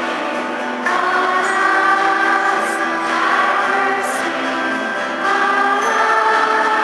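Children's choir singing a hymn with instrumental accompaniment in sustained notes, moving to new notes about a second in and again a little after five seconds in.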